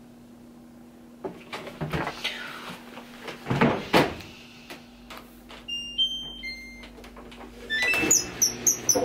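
Washing machine being loaded and started: the detergent drawer and lid give a few plastic knocks, the loudest about four seconds in. Then the control panel plays a short tune of electronic beeps just after the middle, and a quick run of higher beeps near the end. This is the washer beeper, which is called really annoying.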